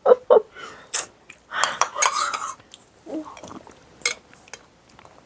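A spoon clinking and scraping against a bowl as food is spooned out, with a sharp clink about a second in and another about four seconds in.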